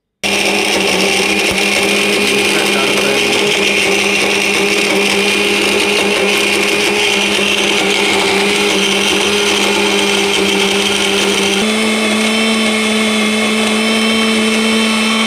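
Electric mixer grinder with a stainless-steel jar switched on and running steadily, grinding cashews, dried coconut and dry dates into powder. Its pitch steps up slightly about three-quarters of the way through.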